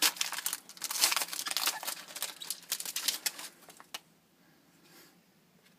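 Trading cards and their packaging being handled: dense crinkling and clicking for about four seconds, then it stops.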